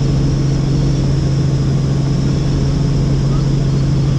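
Helicopter in flight: a loud, steady drone of engine and rotors, a deep hum with a faint high whine above it.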